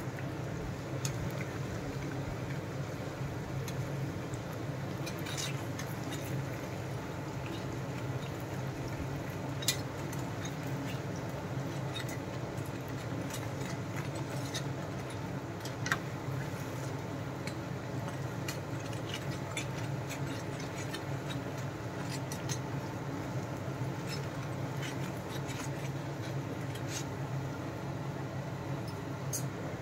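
Mysore bondas deep-frying in hot oil in a pan: a steady sizzle with fine scattered crackling over a low steady hum, and a metal slotted spoon clicking against the pan now and then as they are turned, sharpest about ten and sixteen seconds in.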